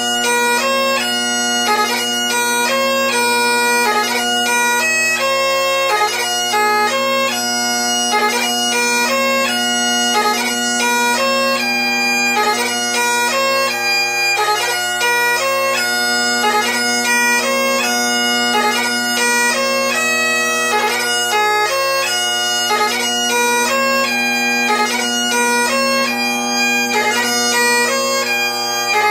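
Great Highland bagpipe playing a slow piobaireachd. The chanter melody moves from held note to held note, cut by quick grace notes, over the steady unbroken drone.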